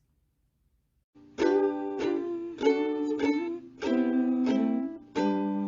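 A plucked string instrument strumming a short run of chords, about six strokes, starting about a second in.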